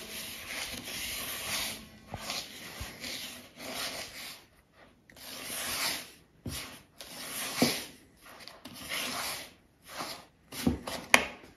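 Dry flour, starch and sugar being stirred together in a mixing bowl: irregular scraping, rubbing strokes with short pauses between them, and a sharp tap near the end.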